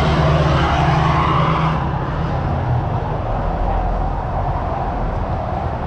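Street traffic with a motor vehicle's engine running close by. Its steady hum drops away about two seconds in, leaving a lower rumble of traffic.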